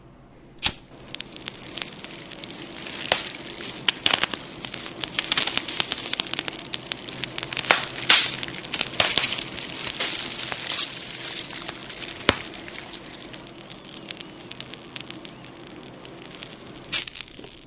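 Fire crackling, with a dense run of sharp pops and snaps over a steady hiss, busiest in the middle and thinning out toward the end.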